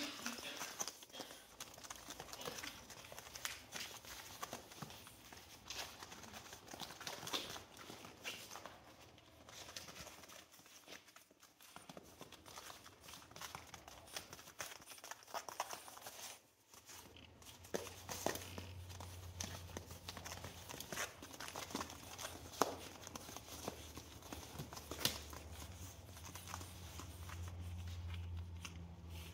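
Pug puppies playing: scattered small clicks and scuffles of paws and claws on the foam play mat and plush toys. About halfway through, a steady low hum comes in underneath.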